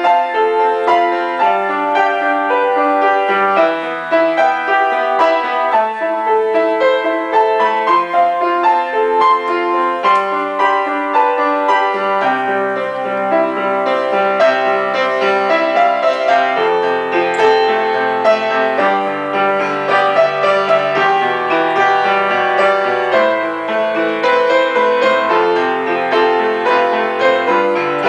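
Upright piano played solo: a continuous stream of notes and chords, with lower bass notes joining about twelve seconds in.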